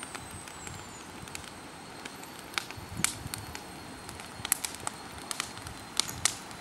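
A wood fire crackling: irregular sharp pops over a steady hiss, the loudest few coming in the second half.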